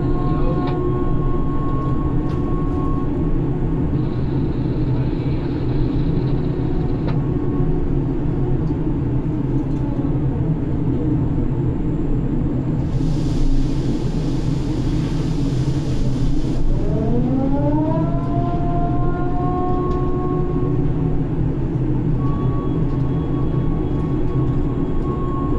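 Grab crane machinery running steadily, heard from inside the operator's cabin: a continuous low drone of the drives, with a few seconds of hiss past the middle and then a motor whine rising in pitch and holding as the crane works.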